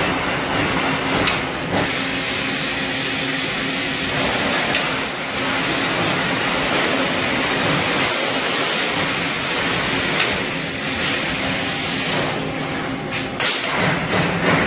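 Steady air hiss and machine running from an automated sheet-metal loading cell, a robot with a suction-cup gripper and roller conveyors handling steel sheets. A few sharp metal knocks come near the end.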